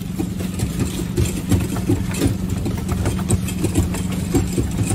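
An engine running steadily at idle, a constant low hum with irregular knocks and clatter over it.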